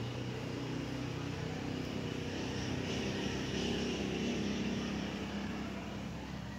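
A distant engine drone over outdoor background noise, swelling a little toward the middle and easing off near the end.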